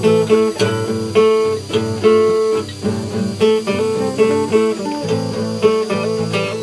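Background acoustic guitar music with plucked notes in a steady rhythm.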